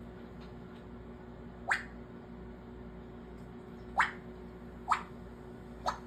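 African grey parrot making short popping noises with its mouth: four quick pops, the first about two seconds in and three more about a second apart near the end.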